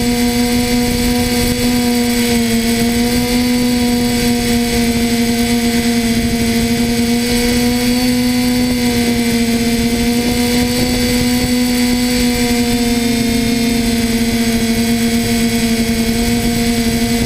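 Spidex multirotor drone's electric motors and propellers humming at a steady pitch, heard through the GoPro carried on it. The tone wavers slightly up and down as the motors adjust.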